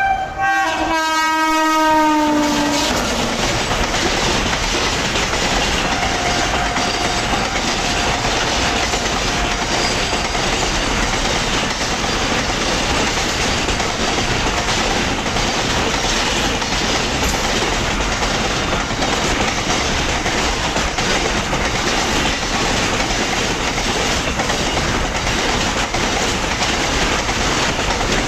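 Freight train horn blowing as the locomotive passes, its tones dropping in pitch and stopping about two and a half seconds in. Then the loud, steady rush and clickety-clack of the freight wagons passing at speed.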